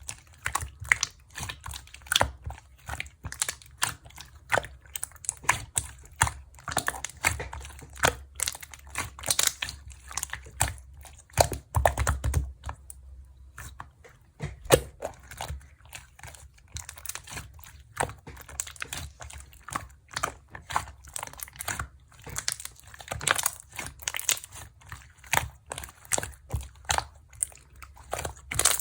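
Close-up handling noise: a dense, irregular run of small crackles and crinkles, as of material being squeezed and crumpled by hand, with a short lull about halfway through.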